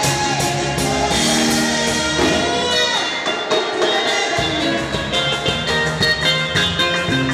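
Live gospel band music with a drum kit. The low end drops out for about a second and a half partway through, then comes back with a steady drum beat.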